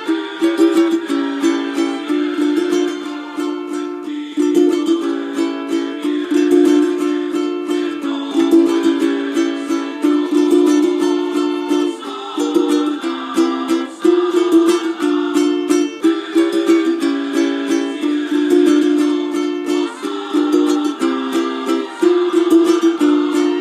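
Ukulele tuned like a vihuela, with re-entrant G and C strings, strummed fast in mariachi style. Bright, high chords with no bass, changing every second or so.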